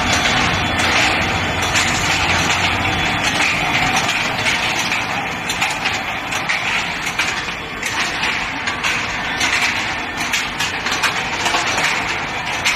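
Steel ball hot rolling production line running: steady industrial machine noise with many small irregular clanks and clicks.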